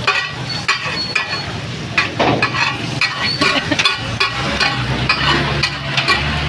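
Steel spatula scraping and clinking against a large flat iron tawa in short irregular strokes as onion-tomato masala is turned and fried in oil.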